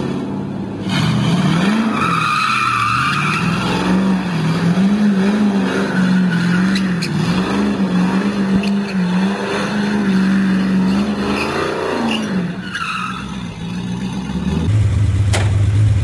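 LS1/LS6 V8-swapped Datsun 280Z doing donuts: the V8 is held high in the revs, its pitch wavering as the throttle is worked, while the rear tyres squeal and skid, most strongly about two to four seconds in and again around thirteen seconds. Near the end it cuts abruptly to a Datsun 240Z's engine running steadily at a lower pitch.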